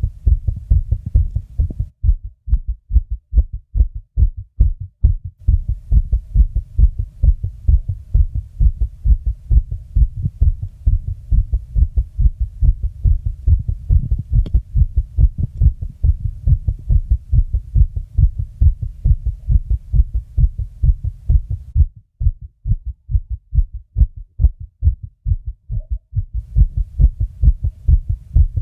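Fast human heartbeat: a rapid, even run of low thumps that keeps going without a break.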